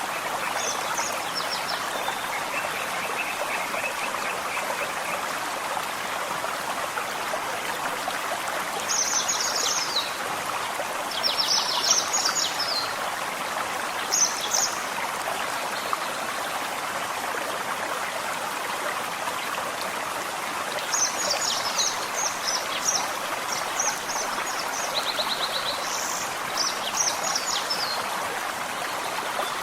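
Forest stream flowing with a steady rush of water. Songbirds sing over it in short phrases of quick high notes, a few in the middle and a busier run of phrases in the second half.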